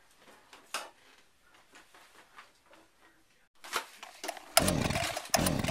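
Faint clicks and handling of a chainsaw, then about four seconds in a loud chainsaw buzz in two short bursts, wavering in pitch.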